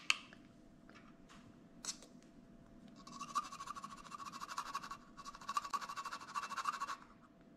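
Spoon scraping rapidly in a container in two bouts of about two seconds each, as a teaspoon of baking powder is scooped and levelled. A single click comes right at the start.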